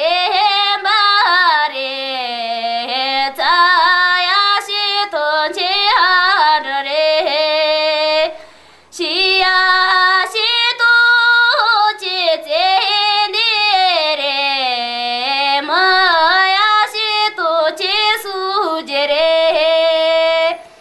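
A woman singing unaccompanied: long held notes with wavering ornaments and glides in pitch, with one pause for breath about eight seconds in.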